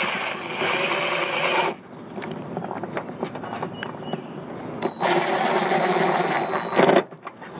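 DeWalt cordless drill running twice as it drives a screw into the wooden fascia: a steady motor whir for about two seconds, a pause, then another run of about two seconds that ends in a brief louder burst.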